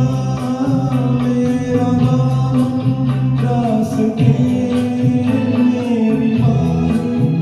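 Instrumental music of a Hindi film song playing between sung lines, with a steady percussion beat.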